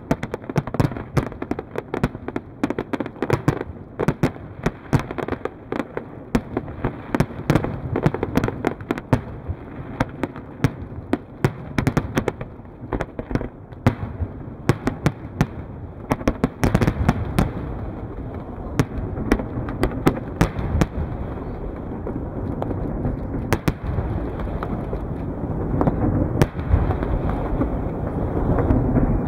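Aerial fireworks display: a rapid string of sharp bangs and crackling shell bursts, densest at first and thinning out past the middle, over a low rumble that grows stronger in the second half.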